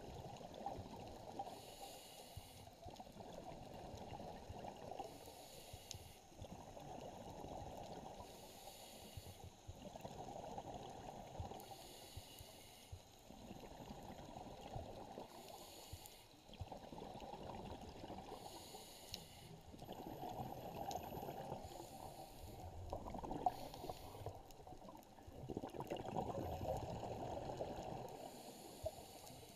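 Scuba diver breathing through a regulator underwater, heard through the camera housing: a hiss on each inhale, then a rush of exhaled bubbles, repeating every few seconds.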